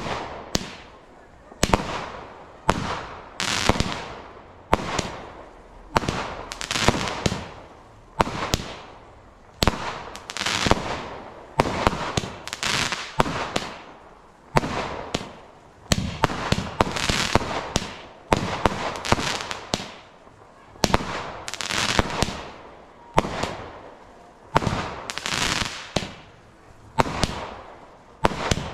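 Celtic Fireworks 'Sling Shot' 16 mm 36-shot cake firing in a steady sequence of sharp reports, about one a second, each trailing off over about half a second.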